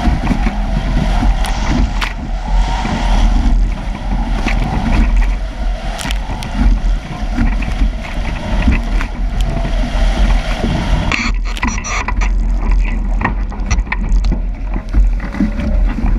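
Strong wind buffeting an action-camera microphone as a sailing catamaran crashes through rough water, with rushing and splashing water. About eleven seconds in the hiss thins and scattered knocks and splashes stand out.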